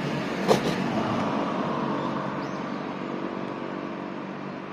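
A motor vehicle's engine running with a steady drone that slowly fades, with one brief sharp sound about half a second in.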